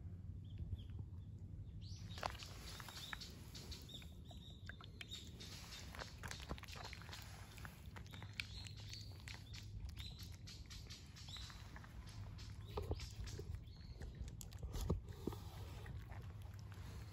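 Cats eating from plastic bowls: a run of small wet clicks from chewing and lapping, starting about two seconds in. Short, faint bird chirps sound now and then over a low steady hum.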